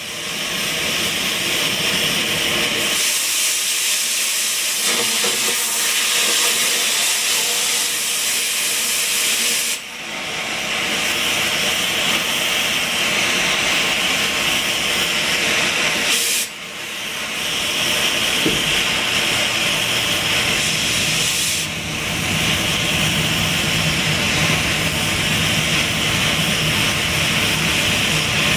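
A metal-cutting torch hisses steadily as it cuts a steel roll-cage bar. It drops out briefly about three times and starts again.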